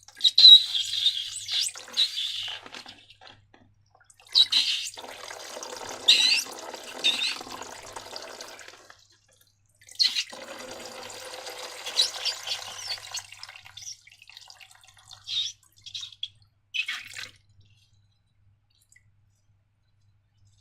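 Wet, sticky slime being squeezed and mixed, a squelching, liquid sound in three long stretches with a few short squishes after them.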